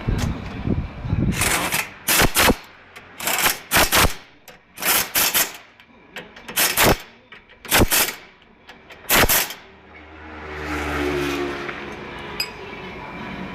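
Repeated sharp metal strikes, about eight short bangs coming singly or in pairs over the first ten seconds, from work on a car's front wheel hub and bearing. Near the end a low machine hum rises and stops after about two seconds.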